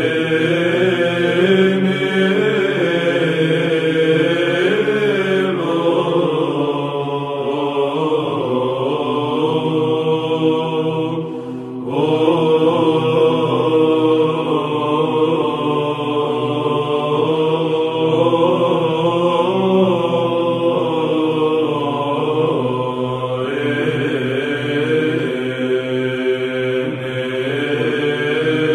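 Byzantine choir chanting: a melodic line moving over a steady held low drone note, with a short breath break about eleven seconds in.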